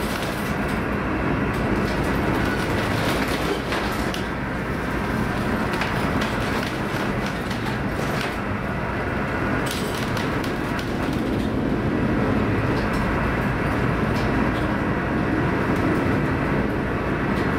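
Steady rumble inside a ship's wheelhouse in a hurricane-force storm: the low drone of the ship's engines mixed with wind and sea noise, with scattered knocks and rattles as the vessel rolls in heavy seas.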